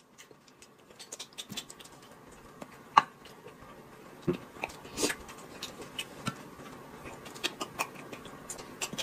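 Close-up eating sounds of boiled eggs being bitten and chewed: scattered wet mouth clicks and smacks, with a few louder clicks about three and five seconds in.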